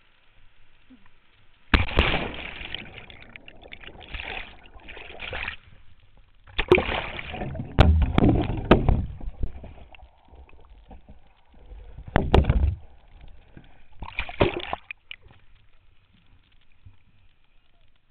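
Water splashing and sloshing around a whitewater kayak in five irregular bursts, with a few sharp knocks among them.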